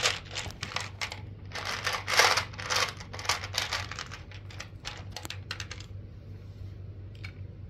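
Small dice clicking and rattling against each other and a plastic case, a quick run of clicks that thins out to a few single ticks after about five seconds.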